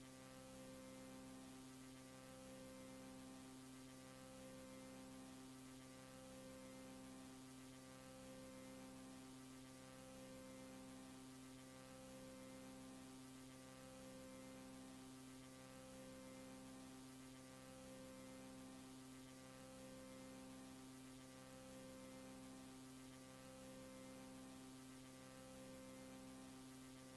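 Near silence with a faint electrical hum from VHS tape playback: several steady low tones, one of them pulsing on and off about every two seconds.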